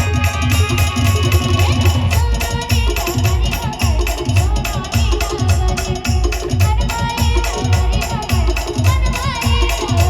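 Live Maharashtrian brass band music: a steady, heavy bass drum beat about twice a second under a wavering melody.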